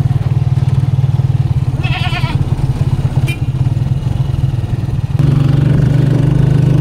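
Motorcycle tricycle engine running steadily, growing louder about five seconds in, with an Anglo-Nubian goat bleating once, a short quavering call, about two seconds in.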